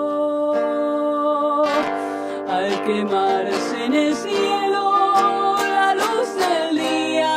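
A zamba played live on an acoustic guitar, with a woman singing long, wavering notes over the plucked accompaniment.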